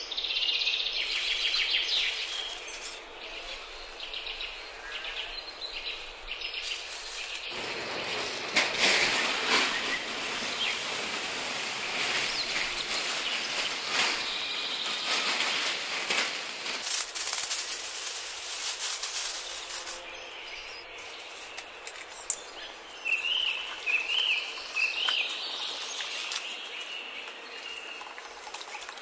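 Small birds chirping now and then, with about ten seconds of loud, even rustling noise in the middle.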